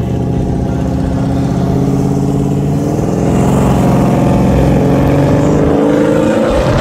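A car's engine running loud under hard throttle as the car pulls away and accelerates, its pitch climbing near the end.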